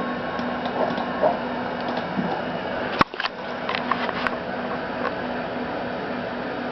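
Steady hum of an old desktop computer running, with one sharp click about three seconds in followed by several lighter clicks.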